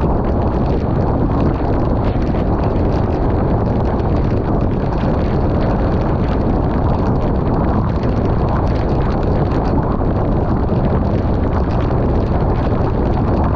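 Steady noise of a vehicle driving in heavy rain, heard from inside: tyres on the wet road and rain on the vehicle, with a fine crackle of drops over a low rumble.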